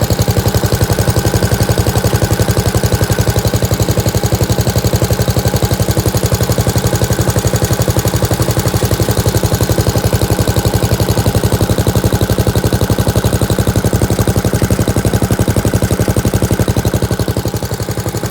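Rusty Gravely tractor engine running steadily with an even, rapid firing pulse, dropping a little in level near the end.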